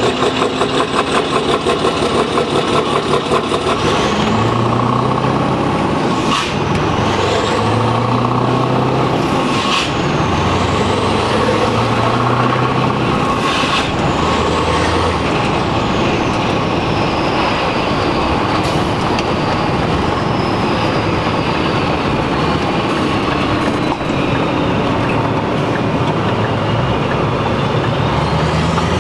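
Scania R620's V8 diesel with loud pipes, heard from inside the cab as the truck accelerates through the gears. The engine note climbs and drops back at each of several shifts, with a short rush of noise at each change. It then settles to a steady cruise.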